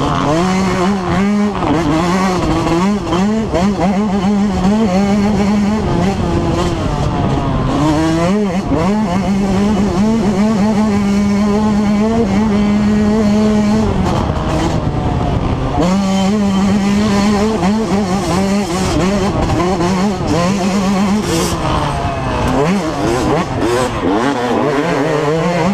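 2005 Yamaha YZ125's single-cylinder two-stroke engine at race throttle, revving up and down as the rider accelerates and backs off. It holds steady high revs twice, for several seconds each, with a brief drop in between.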